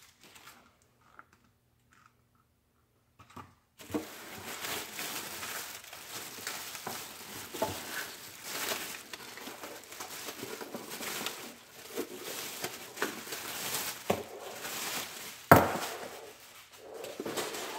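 Clear plastic bag crinkling and rustling as a waffle maker is handled and pulled out of it, starting a few seconds in, with one sharp knock near the end.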